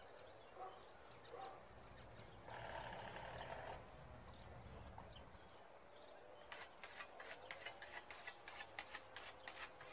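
Faint outdoor quiet with a few faint chirps; about two-thirds of the way in, a rapid run of sharp clicks and scrapes begins, about four a second, typical of a whetstone being stroked along a scythe blade.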